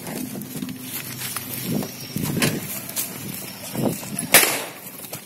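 A single loud gunshot about four seconds in, over shuffling movement and low voices, during an exchange of fire.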